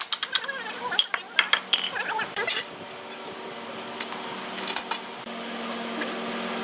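A quick series of sharp metallic clicks and knocks for about two and a half seconds, then a steady machine hum sets in and keeps going.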